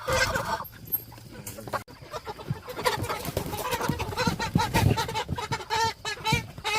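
A flock of Cornish cross meat chickens clucking and squawking in short repeated calls, growing busier over the last few seconds, with scattered low knocks.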